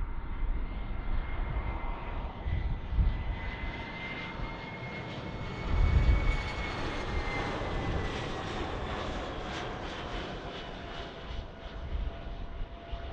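Airliner's engines passing by, a whine in two tones that falls in pitch as the aircraft goes past. Wind rumbles on the microphone throughout, loudest about six seconds in.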